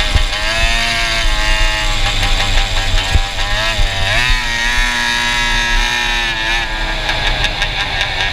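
Go-kart engine fitted with a Stinger exhaust, running hard on track; its pitch dips about four seconds in as it comes off the revs for a corner, then climbs again and holds steady.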